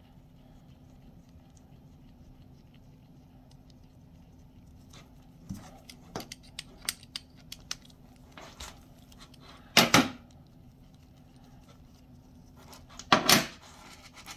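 Metal clicks and clinks of a roller chain being handled in a block-style chain breaker and pulled apart by hand, with two louder metallic clacks, about ten and thirteen seconds in.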